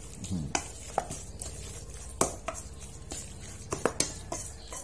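Metal spoon stirring wet minced raw buffalo meat and blood in a stainless steel bowl, with irregular clinks and knocks of the spoon against the bowl. The loudest knock comes about two seconds in, and a quick cluster comes near the end.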